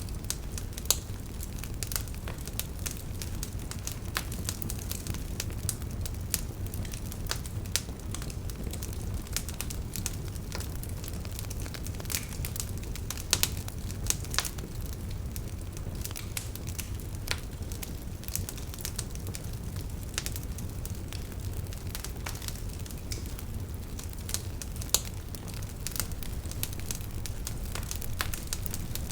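Wood fire burning in a fireplace: a steady low rumble of flames with frequent irregular crackles and a few louder pops.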